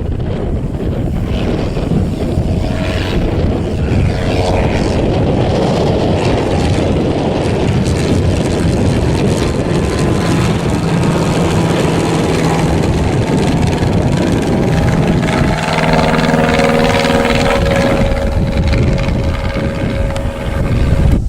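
Propeller aircraft engine running, its pitch bending slightly as it goes, with heavy wind rumble on the microphone.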